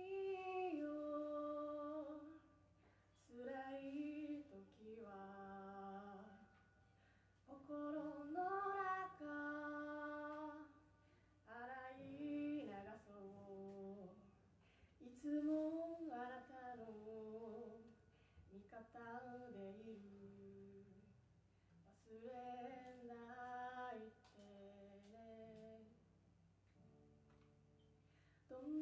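A young woman singing a ballad to her own acoustic guitar, in phrases of a few seconds with short breaths between, quieter near the end.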